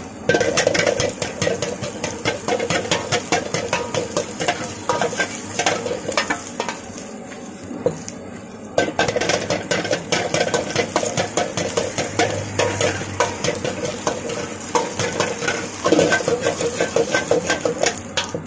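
Long metal ladle scraping and clanking rapidly against a large black wok while stir-frying, over the sizzle of frying food. The strokes ease off for about two seconds a little past the middle, then pick up again.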